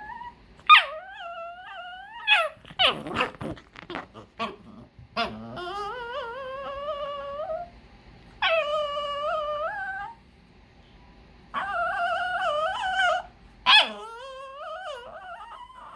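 A dog crying for food: a series of five long, high-pitched whines, several rising or wavering in pitch, with a few short noisy huffs between them about three to five seconds in.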